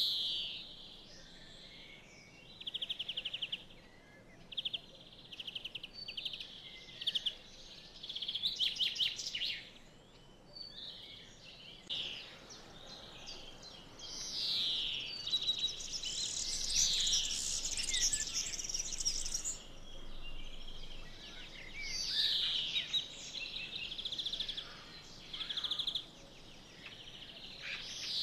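Birdsong: short phrases of fast trills and downward-sliding whistles, coming every second or two with brief pauses between, over a faint background hiss.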